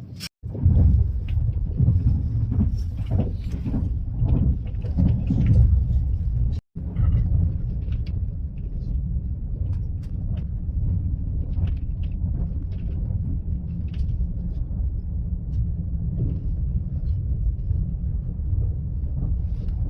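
Steady low rumble inside an Italo high-speed train carriage as the train runs along the track, louder for the first few seconds. It cuts out briefly twice, just after the start and about seven seconds in.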